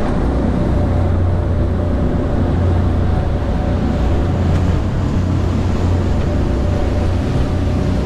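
Outboard engines of a Hydra-Sports 28 boat running steadily under way, a constant low drone, with the rush of wind and water over the hull.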